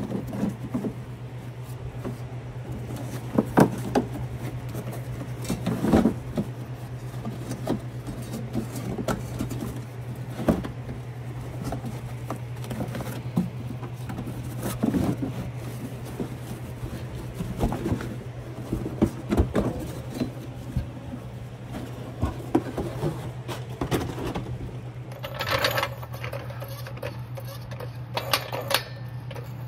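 Hand work on a car's rear fender liner and its fasteners: scattered short clicks and knocks of plastic and small metal parts over a steady low hum. Two louder brief clatters come near the end.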